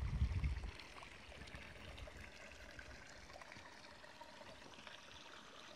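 Faint running water of a stream, a soft even rush, with a brief low rumble in the first half-second.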